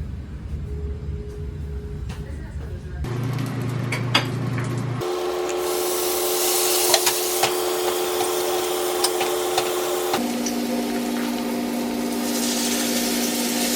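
Background music of held, sustained notes that shift to a new chord every few seconds, over a steady hiss with a few sharp clicks.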